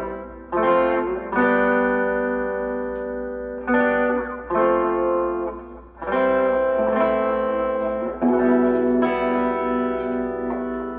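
Telecaster-style electric guitar played clean: about six chords struck one after another, each left to ring for a second or two before the next.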